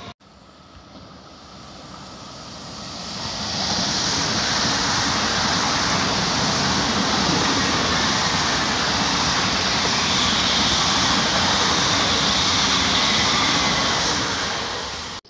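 ICE high-speed train passing: a steady rushing of wheels and air that swells over the first few seconds, holds, and stops suddenly near the end.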